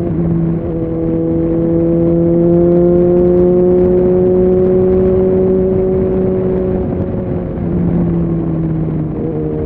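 Suzuki Bandit 650's inline-four engine running under load on the road, its pitch climbing slowly, then easing off, with a short break in the note near the start and again near the end. A rushing noise of wind runs under the engine.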